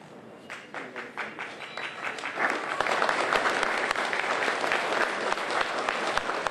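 Audience applauding: a few scattered claps start about half a second in and swell into full, steady applause after about two seconds.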